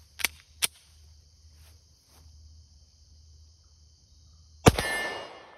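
Two light clicks, then about four and a half seconds in a single shot from a Tisas PX-9 Gen 3 Duty 9mm pistol: one sharp crack followed by a long echo fading away.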